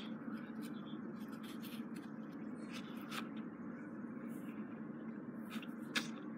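Faint, scattered crunching clicks of a bearded dragon chewing a Madagascar hissing cockroach, with one sharper crack just before the end, over a steady low hum.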